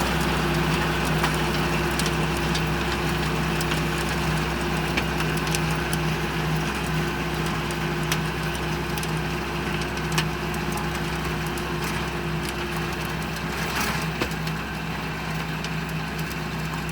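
Engine-driven rotary tiller running steadily while working phacelia into the soil, with a constant engine note and scattered sharp clicks and knocks.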